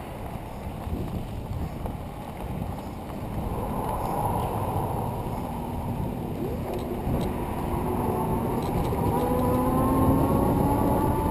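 A bike rolling along a gravel trail, its tyres crunching over the surface with wind rumbling on the microphone. From about four seconds in, a whine with several pitches rises slowly and grows louder as the bike picks up speed.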